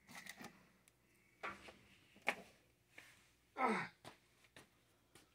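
A few faint clicks and knocks, and a short breathy sigh from a person about three and a half seconds in that falls in pitch.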